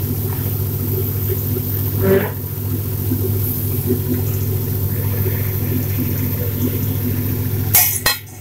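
A steady low hum with a brief clink about two seconds in; near the end a few sharp metallic clicks and clinks of a steel pan lid.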